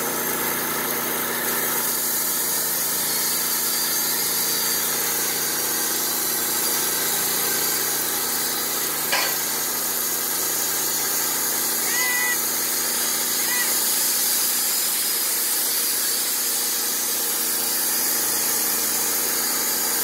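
Wood-Mizer LT15 portable band sawmill running steadily, its engine and band blade at speed as the head starts its cut into a cherry log. A sharp click about nine seconds in, and a couple of short high chirps near twelve and thirteen seconds.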